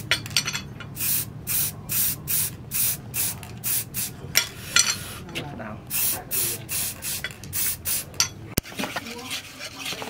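Aerosol spray can hissing in short bursts, about two a second, as a finish is sprayed onto a machete's wooden handle. A single sharp click comes near the end.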